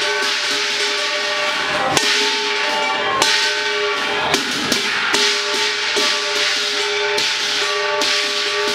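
Chinese lion dance percussion: a steady wash of clashing cymbals over a sustained ringing gong, with sharper strikes about once a second.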